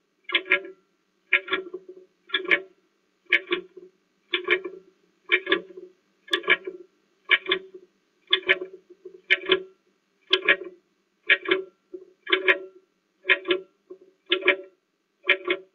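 Clock-ticking sound effect marking a countdown timer, a steady tick about once a second, counting down the time allowed to answer a quiz question.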